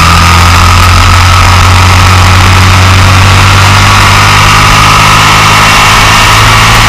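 Motorcycle engine running loud and steady at speed through a long bend, its note holding nearly constant and rising slightly near the end, with a steady hiss of rushing air, heard from a camera mounted low on the fairing by the front wheel.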